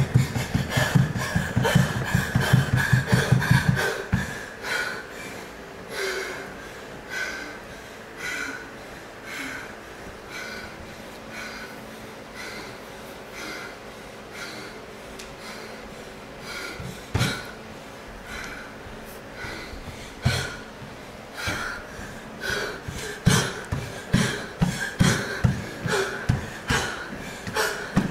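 Rapid stamping footfalls on a dance-studio floor for about the first four seconds. Then hard, regular breathing after the exertion. Thudding steps and landings come back in the last third.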